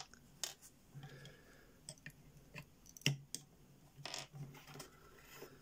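Scattered small plastic clicks and taps from Lego pieces being handled, as a minifigure torso is picked up off a stack of clear bricks. They come irregularly, about a dozen in all.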